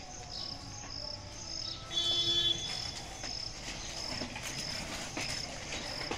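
Insect chirping: a short, high chirp repeating evenly about one and a half times a second. A brief, louder steady call cuts in about two seconds in.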